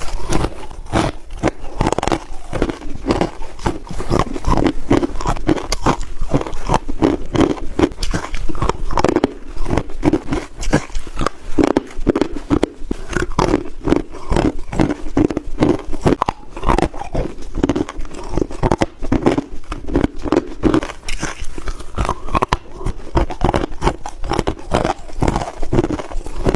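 Crushed ice being bitten and chewed close to the microphone: a dense, continuous run of crunches.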